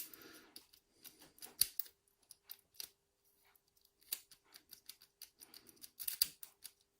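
Metal clicks and short scrapes of a key being pushed into a rekeyed Yale double-ended euro cylinder and turned, the pin stacks clicking over, in bunches at the start, about a second and a half in, about four seconds in and near the end. The key turns but not smoothly, a key that the owner says he should have filed down.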